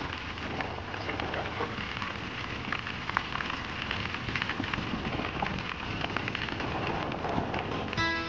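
Eskute Voyager e-bike tyres rolling over a loose gravel path: a steady noisy rush, peppered with many small crackling clicks from the stones. Music comes in near the end.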